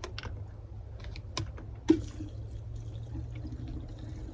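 Two-stroke fuel mix pouring from a spill-proof safety gas can into a chainsaw's fuel tank, with a few sharp clicks and one louder knock just before two seconds in.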